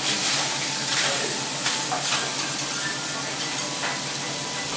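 Food sizzling steadily on a teppanyaki iron griddle, with a few short scrapes and taps of a metal spatula.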